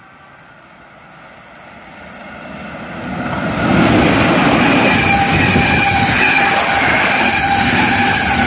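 An electric-hauled intercity passenger train approaches and passes at speed. The rush of the train rises and becomes loud about three and a half seconds in as the locomotive goes by, then continues as a steady noise of the coaches' wheels running on the rails.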